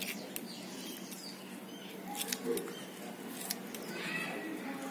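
Scissors snipping through banana peel: several short, sharp cuts at irregular intervals.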